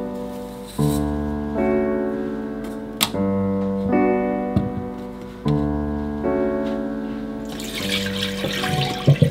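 Slow background piano music, with chords struck one after another and left to ring. Near the end, water running into a stainless steel sink and a few light clanks of a steel bowl.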